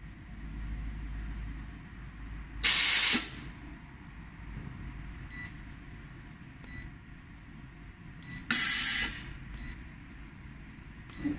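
Rhinestone setting machine letting out two short bursts of compressed-air hiss, about half a second each, a few seconds apart. A low hum runs underneath, and there are several short electronic beeps from the machine's touchscreen controller as it is tapped.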